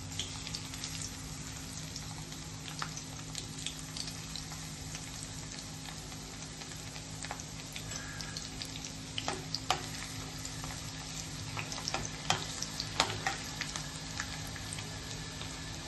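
Crushed garlic sizzling in hot oil in a steel kadhai: a steady frying hiss with scattered sharp crackles that come more often in the second half.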